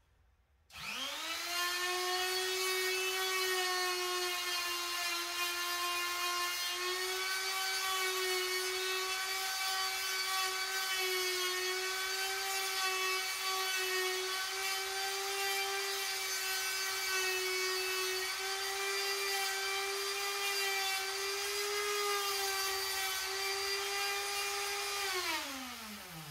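Straight die grinder with a cartridge sanding roll grinding inside the port of a cast-iron Farmall Super C intake manifold, porting it. It spins up about a second in, holds a steady high whine that wavers slightly as the roll works the port, and winds down near the end.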